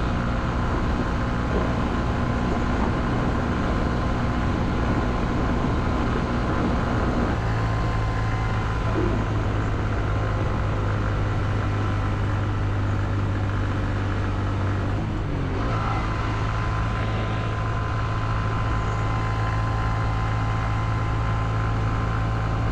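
Honda CB125F's single-cylinder 125 cc four-stroke engine running steadily on the move, under a steady rush of road and wind noise. Its note shifts abruptly about seven seconds in and dips briefly around fifteen seconds in, as at gear changes.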